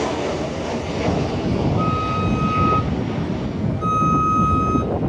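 Steady rumble of a Boeing 737-800 airliner's jet engines as it passes low on approach with gear down. Two electronic beeps, each about a second long, sound about two seconds in and again about two seconds later.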